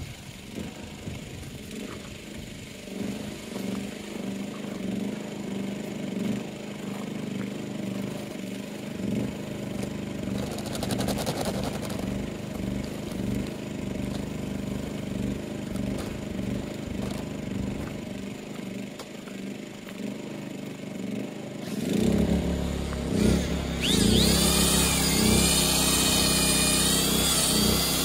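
Portable generator running steadily; about 22 seconds in, a corded drill with a paddle mixer starts up, mixing sanded grout in a bucket. The drill's motor whine wavers in pitch as it churns, over the generator's louder hum under load.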